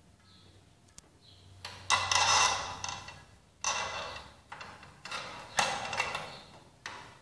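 Failing Narva LS 40 T12 fluorescent tube and its fixture buzzing and crackling in four loud bursts, each starting suddenly and fading, as the burnt-out tube flickers and drops out at its end of life. A low mains hum sits underneath at first, with a sharp click about a second in.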